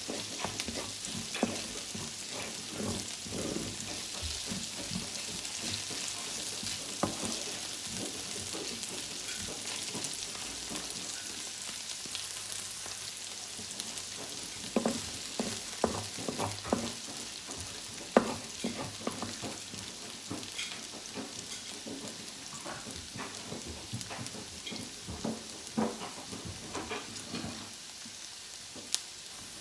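Chopped chili and spring onion sizzling in hot oil in a frying pan as prawn fried rice is cooked, with a steady hiss. A cooking utensil stirs them, knocking and scraping against the pan every second or so.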